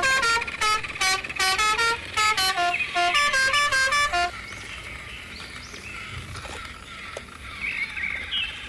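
A loud horn-like melody of short, quick notes stepping up and down in pitch, lasting about four seconds and stopping abruptly. A much quieter backdrop with faint high chirps follows.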